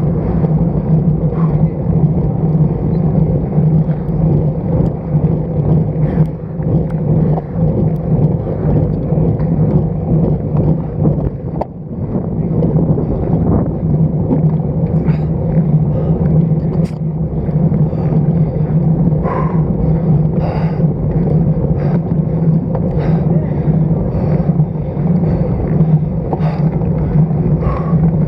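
Steady wind rush and road rumble on the microphone of a stem-mounted action camera on a road bike while riding, with a constant low hum and a few small ticks.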